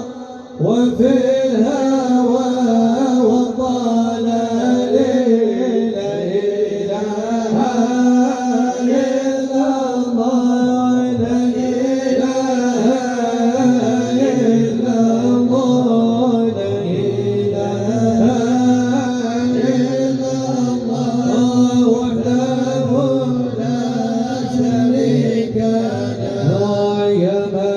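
Male voices singing an Islamic devotional chant (madih nabawi) in long, drawn-out melodic lines, with a steady held low note under the melody.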